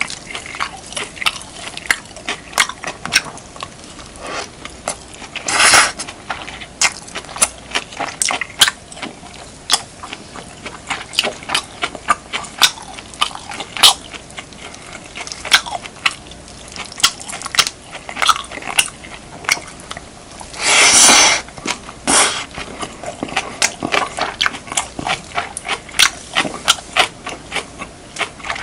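Close-miked eating of beef, kimchi and rice: a dense run of short chewing and mouth clicks, with two louder, longer bursts about six seconds in and around twenty-one seconds in.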